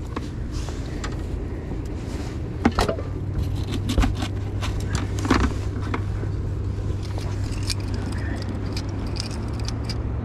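Rain gear rustling and scraping against a chest-mounted camera's microphone as the wearer bends over, with scattered clicks and a few knocks. A steady low motor hum runs underneath.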